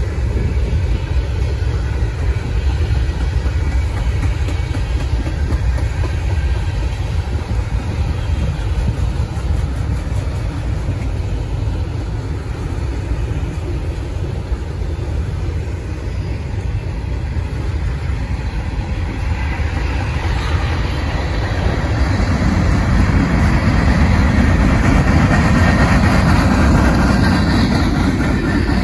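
Freight train rolling past with a steady low rumble and wheel-on-rail noise, growing louder and brighter about two-thirds of the way through.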